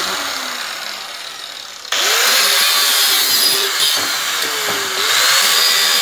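Angle grinder spinning down with a falling whine. About two seconds in it starts up again with a rising whine and runs steadily. Near the end its pitch sags and recovers as it bites into the rusted steel of a scooter exhaust elbow pipe.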